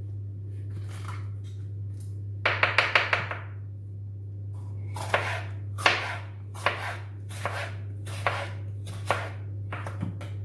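Knife chopping green beans on a cutting board: a quick run of about six cuts a few seconds in, then single cuts at an even pace, a little under one a second.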